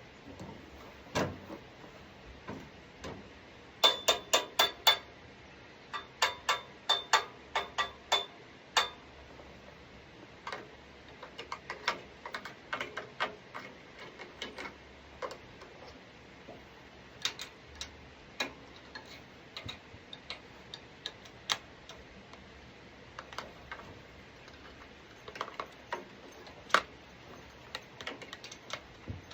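Hand tools clicking and knocking against the metal parts of a lawn mower being taken apart: quick runs of sharp clicks about four seconds in and again from six to nine seconds, then scattered single taps.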